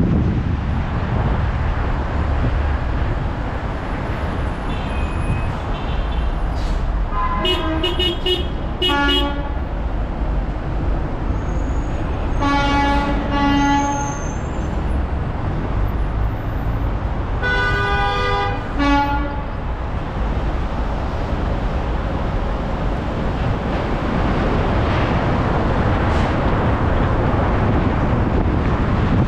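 A horn sounding in blasts: two short toots about eight seconds in, a longer one about thirteen seconds in and another about eighteen seconds in, over a steady low rumble.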